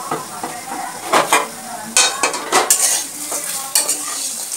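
Metal spatula scraping and tossing torn roti pieces in a steel pan, in irregular scrapes and clinks that begin about a second in, over the steady sizzle of the ghee they are frying in.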